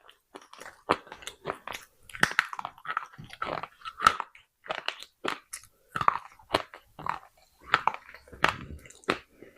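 Pieces of baked clay pot being bitten and chewed close to the microphone: an irregular run of sharp, crisp crunches, a few a second.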